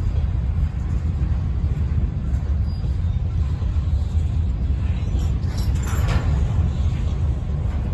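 Steady low rumble of a freight train's covered hopper cars rolling past on the rails. A brief brighter noise, likely wheel noise from the cars, rises over it about six seconds in.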